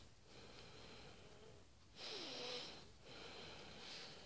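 Faint nasal breathing of a person with a cold, close to the microphone: a breath about two seconds in and a weaker one near the end, with a slight wheezy whistle.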